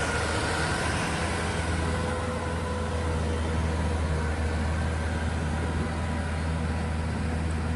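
Inari RG rice combine harvester's engine running steadily with a deep, even hum and machinery noise over it.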